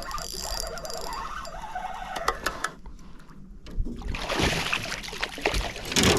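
Water splashing and sloshing as a hooked largemouth bass of about two pounds thrashes at the surface and is landed. The splashing starts about four seconds in and is loudest near the end.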